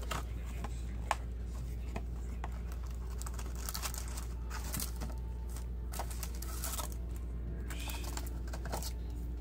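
Hands opening a trading-card booster box and taking out the foil packs: rustling and crinkling of wrapper and cardboard with scattered small clicks and taps, over a steady low hum.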